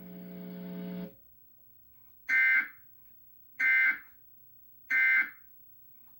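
Emergency Alert System end-of-message code coming through a CRT TV's speaker: three short, identical bursts of rapid two-tone data warble, evenly spaced about a second and a quarter apart, marking the end of the warning. Before them, a low buzzing tone lasts for about the first second and stops.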